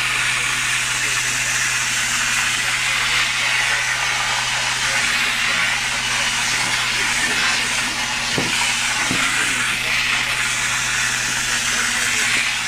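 Upholstery extraction cleaner running: the wand sprays and sucks water through the sofa fabric with a steady rushing hiss over a low motor hum, swelling slightly now and then.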